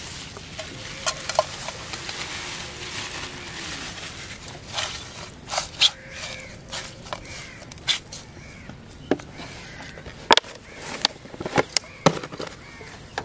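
Crushed shell bait clattering and scraping in a metal bowl as fingers stir through it: a run of sharp clicks and crunches over light rustling, growing denser and louder in the second half.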